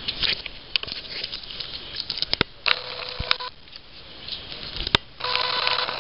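Scattered clicks and knocks of a dairy cow's hooves on rubber floor matting, broken twice by a short burst of loud hissing with a steady tone in it, each under a second long.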